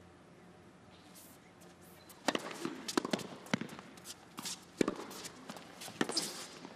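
Tennis ball struck by rackets and bouncing on the court during a rally: after a quiet stretch, the sharp pops of the serve and the exchange start a little over two seconds in and come every half second to a second.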